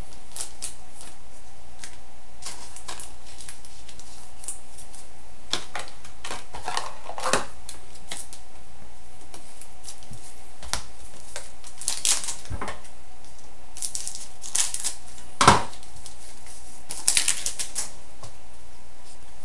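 2011-12 Upper Deck SPx hockey cards and packs being handled: scattered short clicks, taps and rustles every second or few, over a steady faint hum.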